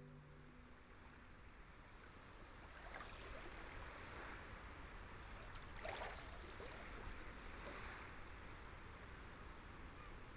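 Faint outdoor water ambience: gentle lapping of lake water, with a few brief soft splashes or calls about three and six seconds in.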